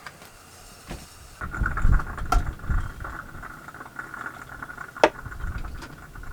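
Plantain pieces being set out in a pan on a boat's galley stove: light handling patter and two sharp clicks over a steady faint hiss that starts about a second and a half in.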